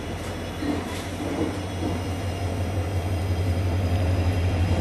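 WDP4D diesel locomotive's 16-cylinder EMD two-stroke engine running with a deep, steady drone that grows gradually louder as the train approaches.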